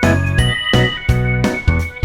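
Background music: a keyboard tune over a steady beat.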